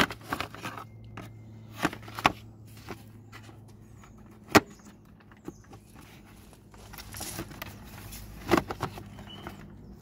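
Plastic fuse box lid in a Mazda CX-5's engine bay being fitted back on: scattered knocks and several sharp clicks as it is pushed and clipped into place, the sharpest about halfway through and a cluster near the end, over a low steady hum.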